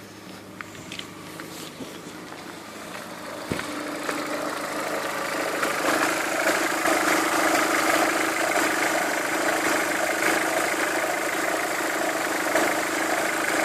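A steady mechanical hum with one constant tone, swelling louder over the first six seconds and then holding steady, with a few faint clicks and a knock about three and a half seconds in.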